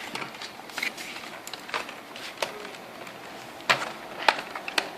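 Irregular sharp clicks and knocks of plastic as the HP Pavilion G6 laptop's cover is pressed and fitted into place, its clips snapping in. The two loudest come near the end.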